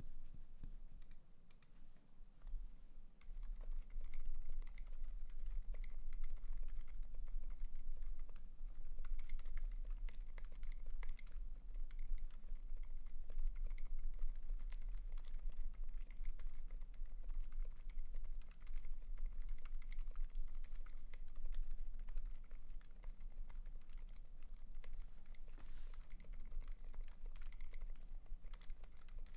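Typing on a custom Tofu60 60% mechanical keyboard built for silence, with lubed Durock Dolphin silent linear switches on an aluminium plate and lubed, padded TX stabilizers: a continuous stream of muted keystrokes. A steady low hum sits underneath from a few seconds in.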